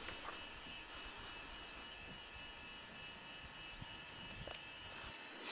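Quiet open-air ambience: a faint steady hiss with a thin, steady hum and a couple of faint ticks.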